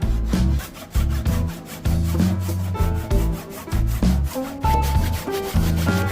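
Saw cutting through a wooden timber with a rasping sound, under background music with bass and plucked notes.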